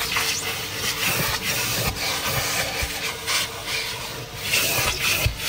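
Vacuum cleaner running with its nozzle rubbing and scraping over a car's interior, a steady suction hiss that dips and returns unevenly as the nozzle moves.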